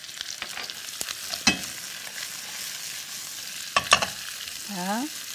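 Chunks of onion and bell pepper sizzling in hot oil in a frying pan while a silicone spatula stirs and turns them. The spatula clacks against the pan about a second and a half in and twice near four seconds.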